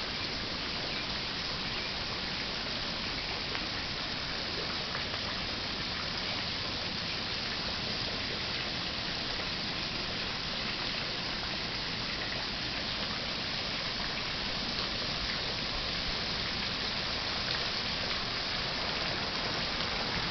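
Steady rush of water from a man-made garden waterfall pouring into a pond, unbroken throughout.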